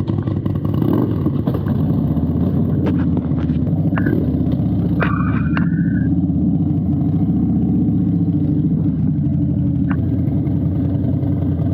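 Harley-Davidson air-cooled V-twin engine running steadily with a low pulsing rumble. A brief high chirp sounds about five seconds in.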